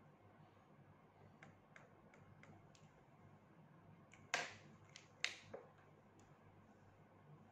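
Small hand tools and a marker pen being handled on a wooden tabletop: a few faint clicks, then two sharp clicks about a second apart, near the middle.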